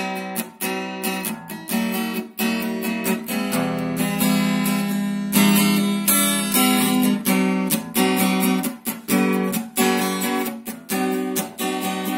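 Acoustic guitar with a capo, strummed in a steady rhythm, chord after chord.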